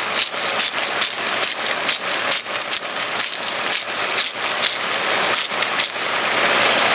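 Chicken and potato pieces sizzling in oil and soy sauce in a frying pan: a steady hiss with irregular crackles and pops.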